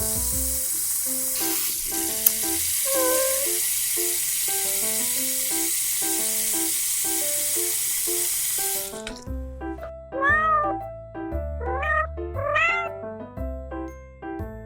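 A steady sizzling hiss like food frying runs over light background music and stops suddenly about nine seconds in. Then a cat meows three times over the music.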